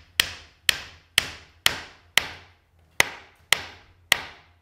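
Hammer driving a quarter-inch wooden dowel peg into a kayak frame's deck-stringer tenon joint: about nine sharp blows, roughly two a second with a short gap midway, each ringing briefly.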